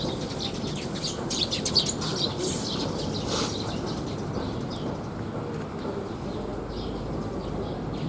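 Small birds chirping in short, repeated calls, busiest in the first few seconds, over a steady low outdoor background hum.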